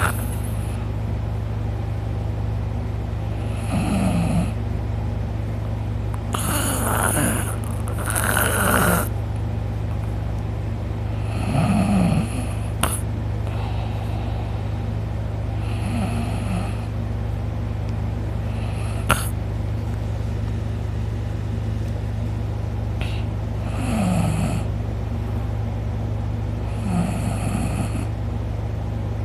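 A man snoring loudly in his sleep, one snore every few seconds with a longer pause midway. A steady low hum runs underneath.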